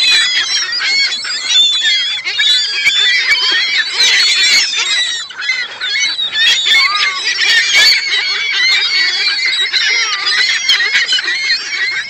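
A flock of gulls calling, with many cries overlapping at once and no break.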